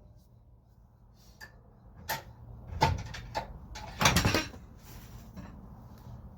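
A few sharp knocks and clunks, as of metal car parts or tools being handled, with a louder rattling cluster about four seconds in.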